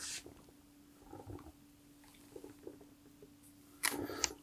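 Quiet handling noises as a rubber band is fitted onto a plastic airsoft hand grenade: a few faint light taps and rustles, then a louder rustle near the end, over a faint steady hum.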